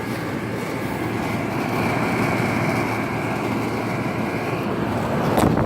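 2004 Trane XB10 3.5-ton central air conditioner condenser running: steady fan and compressor noise, with a faint high whine for a few seconds in the middle and a louder rush near the end.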